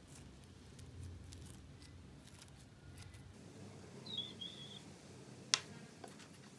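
Faint small ticks and crackles of clear microbead slime being handled and pressed into a small plastic jar, then two short high squeaks. About five and a half seconds in comes a sharp click as the plastic jar is set down on the table, followed by a lighter tap.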